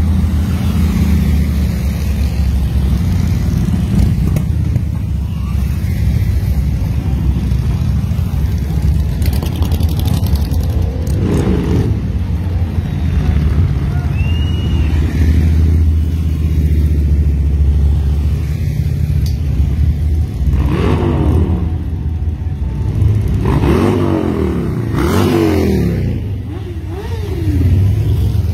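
Motorcycle engines running as a slow procession of bikes rolls past, a continuous low drone. Riders rev their engines, the pitch rising and falling briefly near the middle and several times in the last third.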